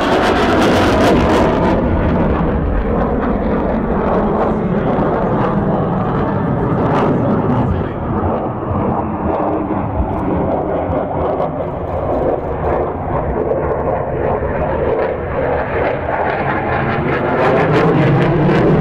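Jet noise from a General Dynamics F-16 Fighting Falcon flying display manoeuvres overhead: a loud, continuous rumble. It is sharpest in the first second or two, dulls as the jet draws away, and swells again near the end, with its pitch slowly gliding as it turns.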